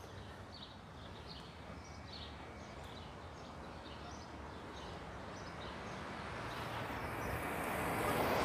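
Street ambience: faint bird chirps repeating every half second or so, under the noise of a passing vehicle that swells slowly and is loudest near the end.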